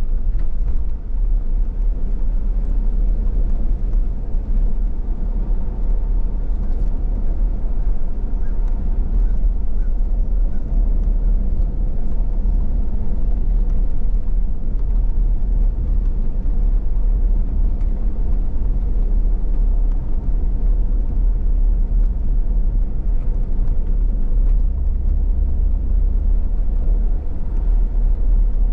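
Vehicle driving along a paved backroad: a steady low rumble of engine and tyres on the road surface.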